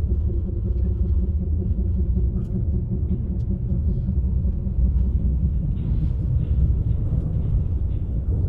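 A deep, steady, low rumble with a faint hum above it. It is the resonating noise around the tide-containment wall, which people have been told is a natural occurrence that will stop.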